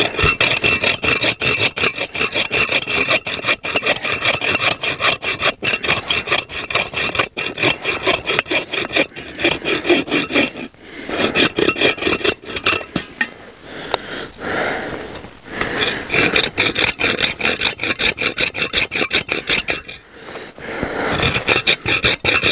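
Hand saw cutting wood in rapid back-and-forth strokes, with a few short pauses between runs.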